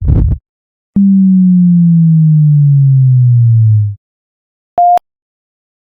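A brief burst of noise, then a low electronic tone that slides steadily down in pitch for about three seconds, pulsing about twice a second, followed by a single short higher beep.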